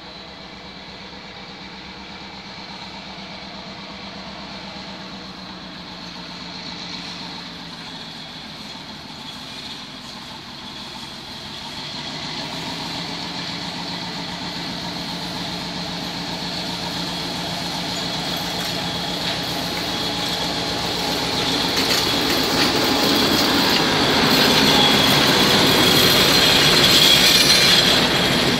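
Nohab-type diesel locomotive approaching and passing with a train of passenger coaches. The engine's steady drone grows louder from about halfway. Near the end the coaches roll by with wheel clicks over the rail joints and a high wheel squeal.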